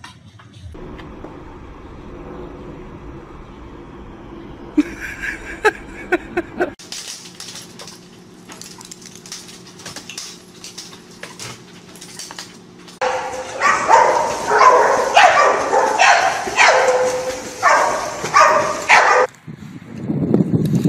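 A dog barking repeatedly in short, loud calls during the second half, after a quieter stretch with a few light taps.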